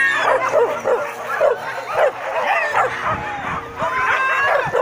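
Boar-hunting dogs yipping and whining: a quick run of short, high, overlapping yelps that bend up and down in pitch.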